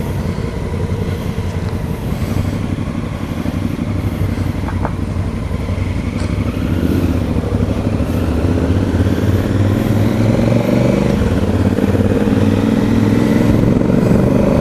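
Motorcycle engine running under way, growing gradually louder with its pitch slowly rising as it gathers speed.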